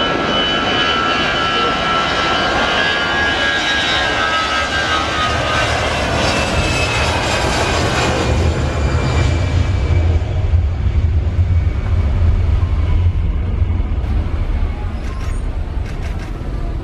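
Airbus A320 jet engines at take-off power during the take-off roll. A high whine slides slowly down in pitch over the first several seconds. A loud low rumble then builds as the jet rolls past, strongest about ten to thirteen seconds in, and eases as the airliner lifts off.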